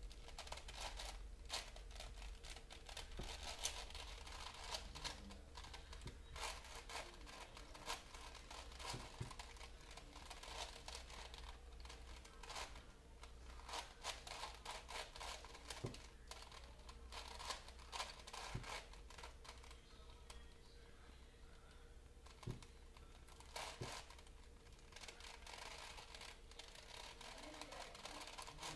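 Plastic Rubik's-style puzzle cube with many layers being turned quickly by hand: rapid, irregular clacking of the layers as they are twisted, with a few louder clicks.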